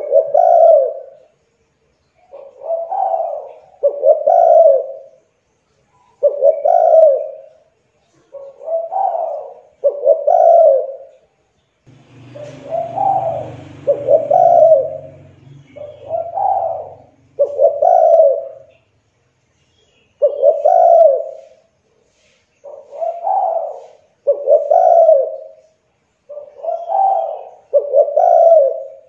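Spotted dove (tekukur) cooing over and over: short phrases of low coos every second or two with brief pauses, the typical song of the species. A low rumbling noise runs under the calls for a few seconds in the middle.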